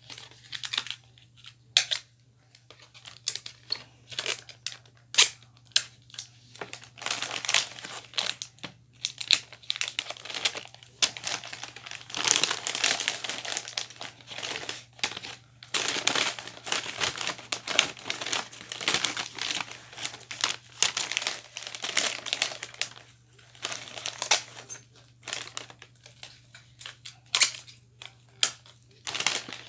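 Wrapping paper rustling and crinkling in irregular handfuls as a present is wrapped by hand, busiest in the middle stretch.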